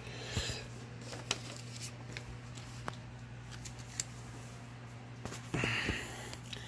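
Paper novelty banknotes being handled and laid out: light paper rustles and small scattered clicks, with a louder rustle a little before the end. A steady low hum runs underneath.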